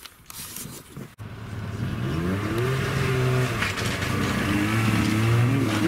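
Snowmobile engines running and revving as the sleds approach, their pitch rising and falling with the throttle and the sound growing louder just over a second in.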